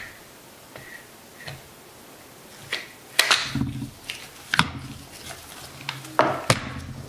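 Irregular sharp clicks and knocks of an AR-15's upper and lower receivers being fitted together and handled during reassembly, with the loudest knocks about three, four and a half and six seconds in.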